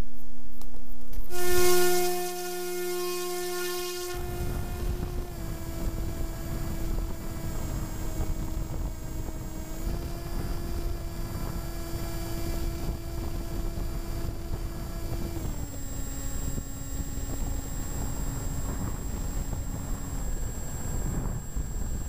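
EasyStar 2 RC glider's electric motor whining in flight, its pitch stepping down a few times as the throttle is changed, then cutting out near the end. Wind rushes over the plane-mounted camera from about four seconds in.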